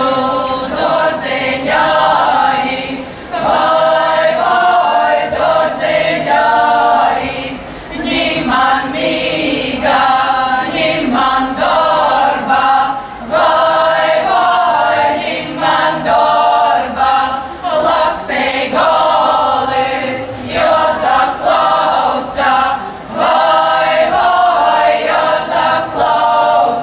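A Latvian folklore ensemble singing a folk song together as a choir, unaccompanied, in phrases separated by short breaths.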